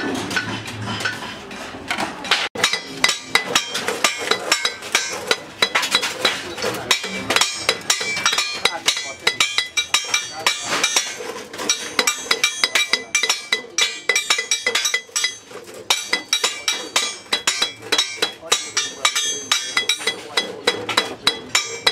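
Sheet aluminium being hammered over a rusty steel disc to form a baking pan's rim: a steady run of short metallic blows, about two to three a second, with a bright ring. For the first couple of seconds, before the blows start, tin snips are cutting the sheet.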